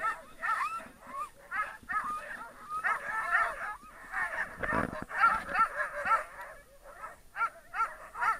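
A team of harnessed sled dogs yelping and whining together, many high cries overlapping without pause.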